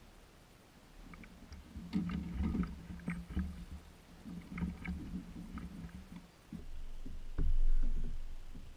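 Scattered knocks and clatter of a bull redfish being netted and brought aboard a Hobie fishing kayak, the net and fish bumping against the hull, with low rumbling throughout. A louder low rumble comes near the end.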